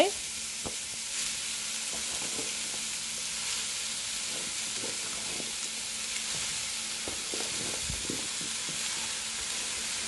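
Vegetables sizzling steadily in hot oil in a pot as shredded cabbage and pak choy are tipped in on top of frying carrots and onion, with a few faint taps of pieces dropping in.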